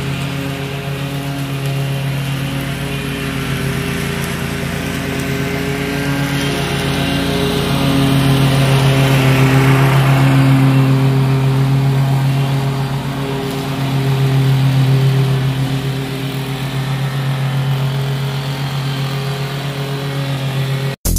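Scag V-Ride II stand-on mower running steadily while mowing, getting louder as it passes close about halfway through and fading as it moves away.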